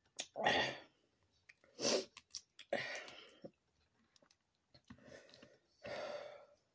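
Close-up eating sounds of boiled crawfish being peeled and eaten by hand: sharp clicks of shell breaking and about five short, noisy mouth sounds.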